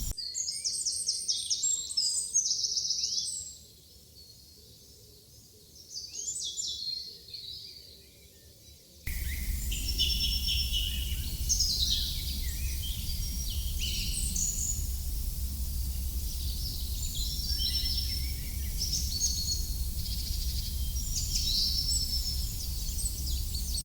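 Dawn chorus of small songbirds chirping and trilling in quick, high phrases. About nine seconds in, the background changes abruptly to a steady low rumble and hiss of outdoor noise while the birdsong carries on.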